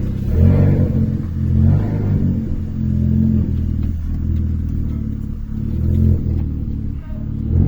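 Downpiped Renault Clio RS 1.6 turbo engine running under load. The engine note climbs and drops several times as the gearbox shifts.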